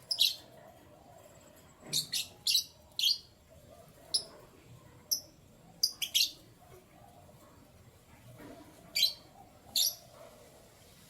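Canary chirping: short, sharp, high call notes in small clusters of one to three, with pauses of a second or more between them, rather than a continuous song.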